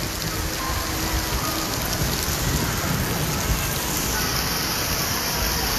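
Rain falling steadily onto wet paving and puddles.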